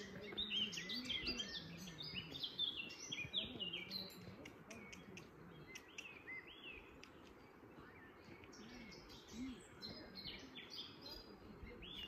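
Wild songbirds singing, a mix of short high chirps and trills. The song is dense in the first few seconds and again near the end, thinner in the middle.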